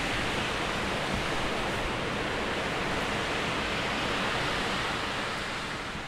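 Storm wind rushing through the woodland treetops, a steady roar that sounds like an ocean. It eases a little near the end.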